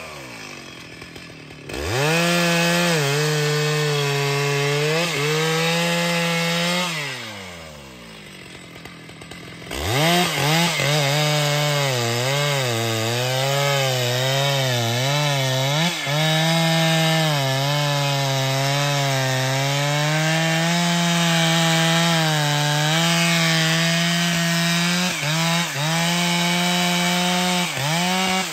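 Stihl MS 881 two-stroke chainsaw bucking a thick log. The engine drops to idle, revs up about two seconds in and runs at full throttle with its pitch wavering as the chain bites, falls back to idle around seven seconds, then revs up again near ten seconds and saws steadily, ending in a string of short throttle blips.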